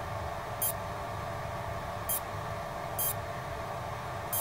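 Steady electrical buzz and hiss from the powered-up pinball test setup, with four short, high-pitched chirps about a second apart.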